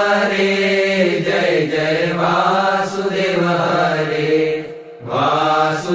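Swaminarayan devotional chanting: voices sing long held phrases in a steady chant, with a short break for breath about five seconds in before the next phrase begins.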